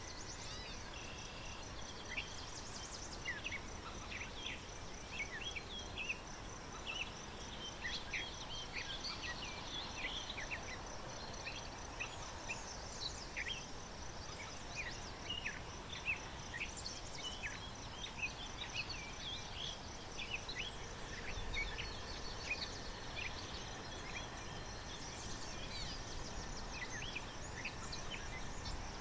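Outdoor wetland ambience: small birds chirping with many short, sharp calls scattered throughout, over a steady high-pitched rapid trill like an insect's.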